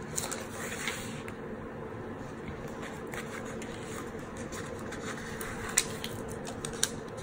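Quiet paper handling: a sticker sheet being touched and a sticker peeled off its backing, with a few light clicks and taps near the end over a faint steady hum.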